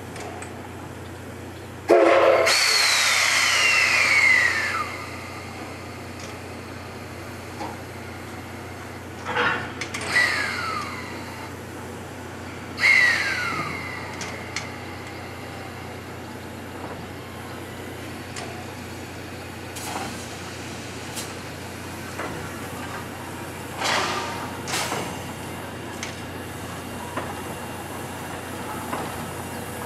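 C58 steam locomotive letting off steam in hissing bursts, three times, each with a pitch that falls as it fades; the first, about two seconds in, is the longest and loudest. A few short knocks follow later.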